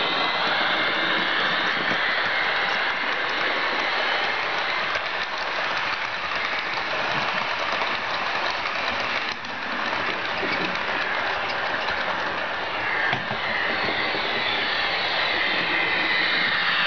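Sound decoder in a Roco model of an HLE 20 electric locomotive, playing electric-locomotive running sound through its small speaker: a steady hiss with whining tones that slide in pitch. The model coaches roll along the track in the background.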